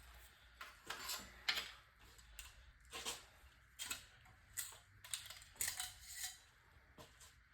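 Light, irregular metallic clinks and scrapes, about a dozen spread over several seconds, from hand work on a bare 6.0 L LQ9 V8 engine during teardown.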